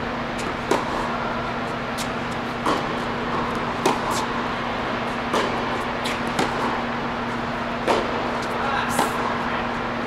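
Tennis rally on a hard court: sharp racquet hits on the ball and ball bounces, roughly one every second, with some louder than others, over a steady low hum in a large indoor tennis hall.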